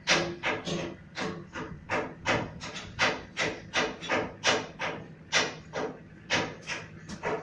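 Background music with a fast percussive beat of sharp drum-like strikes, about three a second.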